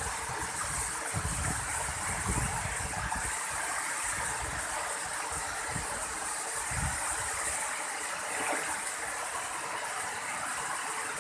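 Waterfall: a steady rush of falling water, with an uneven low rumble beneath it.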